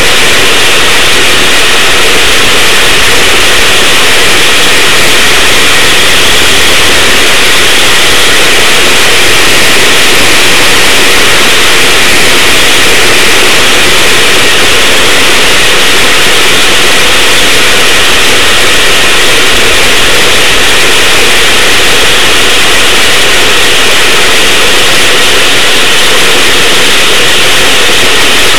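Racing go-kart engine and wind overloading the kart-mounted camera's microphone, a loud, steady, distorted roar that does not change in pitch.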